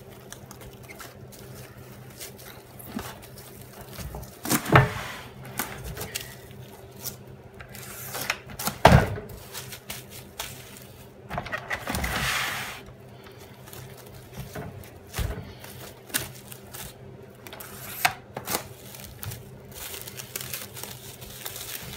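Plastic cling wrap crinkling and stretching as it is wound tightly around a whole raw chicken, with several thuds as the wrapped bird is turned and pressed on a wooden chopping board. The loudest thuds come about five and nine seconds in, and a longer rustle of the film around twelve seconds in, over a low steady hum.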